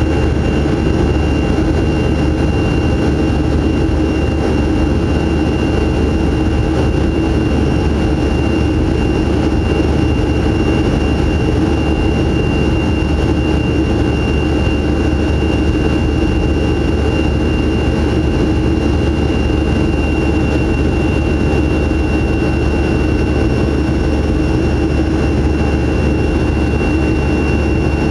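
Boeing 737-300's CFM56-3 turbofan engines heard from inside the passenger cabin, running steadily at constant power. A heavy low rumble carries several steady whining tones above it, unchanging throughout.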